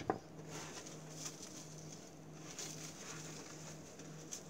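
A plastic bottle cap set down on a worktable, two light clicks right at the start, followed by a faint, steady low hum.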